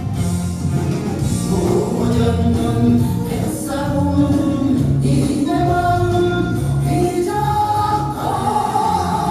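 A Korean song: singing with long held notes over an instrumental backing with a steady bass line.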